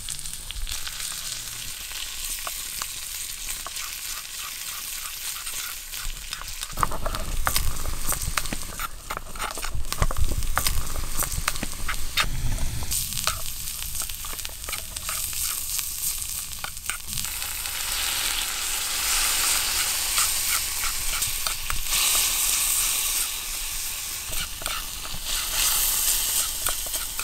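Pork and vegetables sizzling in a miniature wok while being stir-fried, with a small metal spoon scraping and tapping the pan in quick clicks. A low rumble runs for several seconds in the middle, and the sizzle grows louder and hissier in the second half.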